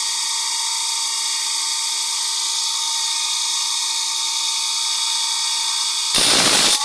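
Electric grinding wheel spinning freely with a steady high whine. About six seconds in, a handsaw blade is pressed against the wheel and a louder, harsh grinding starts as the saw is sharpened.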